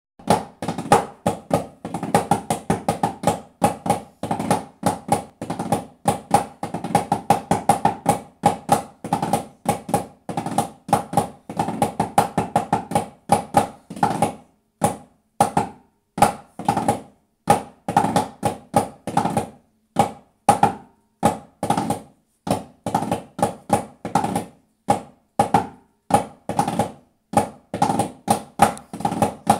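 Side drum (tamburo) played in marching cadences for flag-wavers: groups of sharp strokes with fast roll-like runs and short pauses between phrases, in a small room.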